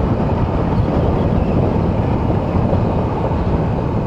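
Steady wind rush and riding noise at a motorcycle rider's helmet microphone while cruising on a 2022 Yamaha R7 at expressway speed, with the engine running underneath.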